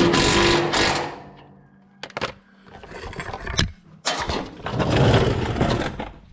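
Cordless drill with a socket spinning a bolt on the trailer's chassis for about a second, its motor whining steadily, then stopping. A few short metal knocks follow, and about four seconds in a longer scraping rustle.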